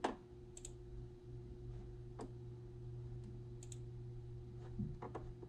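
Scattered sharp clicks of a computer mouse, including two quick double-clicks, over a steady low electrical hum.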